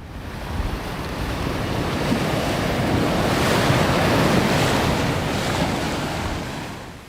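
Ocean surf: a wave rushing in, swelling to a peak about halfway through and then dying away.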